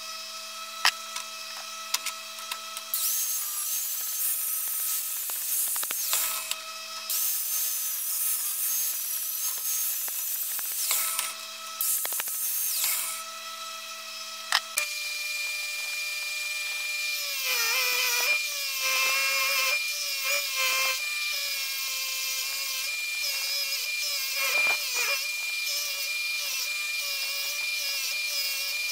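A power grinder runs on a cast metal coin, with rough grinding that comes and goes over a steady motor tone. About halfway through the sound switches to a DeWalt bench grinder's wire wheel spinning with a steady whine, its pitch dipping several times as the coin is pressed against it.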